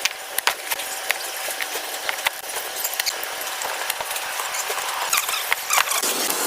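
Scattered small clicks, taps and scratching of hand tools working on a plasma cutter's circuit board during a repair, over a steady hiss.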